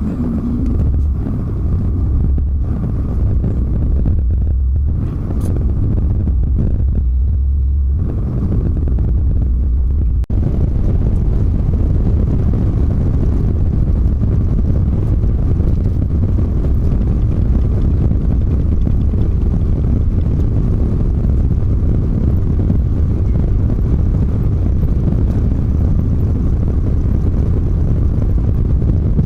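Volvo semi-truck driving on the highway: a steady low engine rumble with road noise. The road noise gets fuller about ten seconds in.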